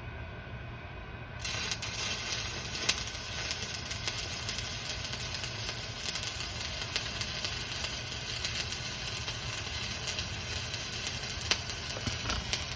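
Stick (shielded metal arc) welding arc struck about a second and a half in, then crackling and sizzling steadily with sharp pops as a rod burns, over a low steady hum.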